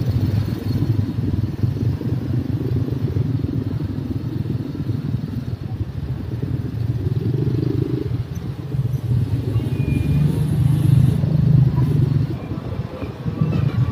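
Small motorcycle engine running steadily while riding slowly along a busy street, with a low rumble and road noise; the engine gets louder about ten seconds in.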